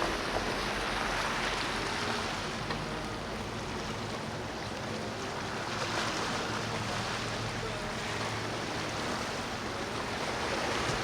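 Steady rush of waves and churning water, with a faint low hum of boat engines beneath it.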